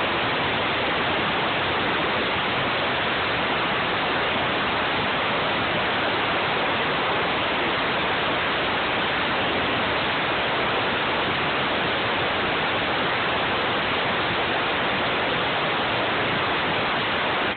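Steady rushing hiss of air from a dust-cleaning tool blowing through a desktop computer's case, even and unchanging, with no motor tone in it.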